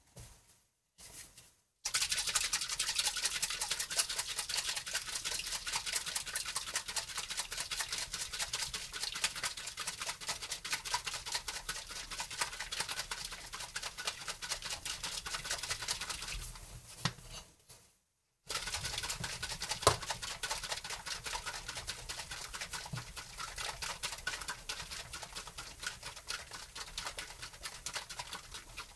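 Cream being beaten with a whisk in a bowl: a rapid, steady scraping clatter that stops briefly about 17 seconds in, then starts again.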